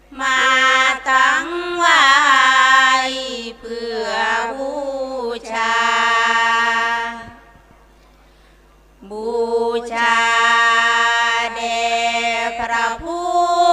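Thai women singing sarabhanya, Buddhist verse chanted unaccompanied in long held notes that bend and slide in pitch. The phrases run for about seven seconds, stop for nearly two, then start again.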